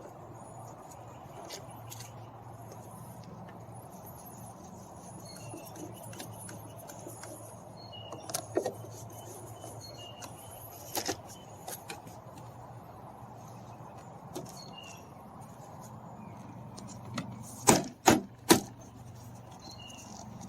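Small metallic clicks and clinks of a screwdriver and screws as a car door panel's fasteners are worked, then three sharp knocks in quick succession near the end.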